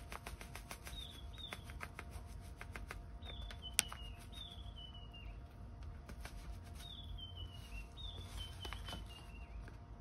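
A bird singing short phrases of notes that step down in pitch, repeated several times, over faint irregular ticking and rustling as ground coffee is poured from a paper bag into a metal espresso filter basket. One sharp click comes a little under four seconds in.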